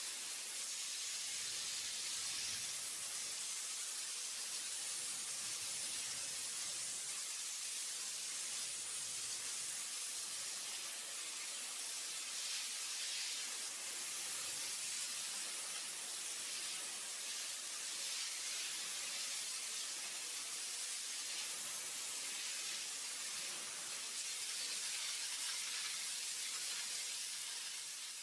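A steady, even hiss like a spray or jet of air, high and hissy with little low end.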